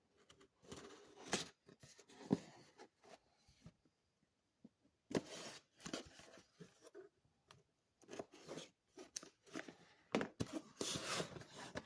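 Packaging being torn and crinkled open by hand to unbox a watch, in irregular bursts of tearing and rustling with short pauses.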